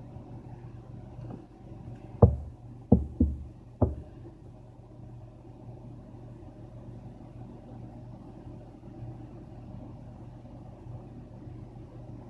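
Four dull, bass-heavy thumps in quick succession about two seconds in, over a steady low hum.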